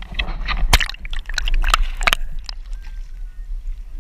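Water splashing and sloshing as a hooked cobia thrashes at the surface beside the boat. There are several sharp splashes in the first half, the biggest about a second in and again about two seconds in, over a low rumble.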